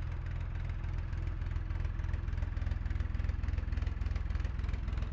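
Narrowboat's diesel engine running steadily, with a low, fast, even beat.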